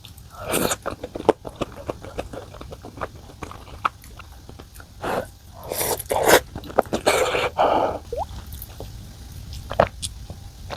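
Close-miked eating sounds: a person chewing, with many sharp clicks and a few longer noisy bursts about five to eight seconds in.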